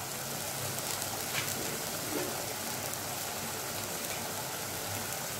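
Onion-tomato masala frying in oil in a steel kadai, with red chilli powder and turmeric just added: a steady sizzle with a few faint ticks.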